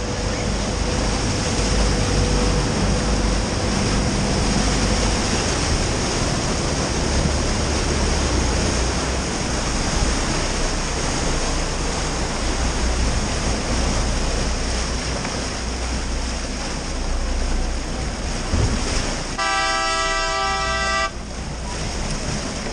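Steady rush of wind and water with a low rumble from a boat under way at speed, then near the end a single fog horn blast of about a second and a half: the tour boat's signal for swimmers to jump in with the dolphins.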